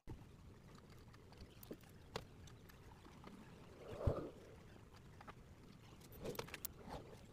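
Faint, scattered light taps and a soft rustle of a paintbrush working over a textured, gesso-coated canvas, with a slightly louder brushing sound about four seconds in and a few small clicks near the end.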